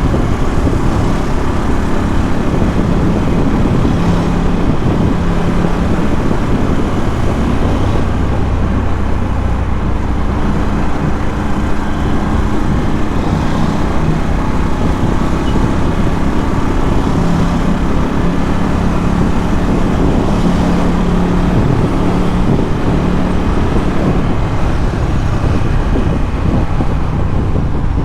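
Ducati Scrambler 1100's air-cooled L-twin through a Termignoni exhaust, running steadily while riding, its pitch shifting slightly up and down a few times with the throttle.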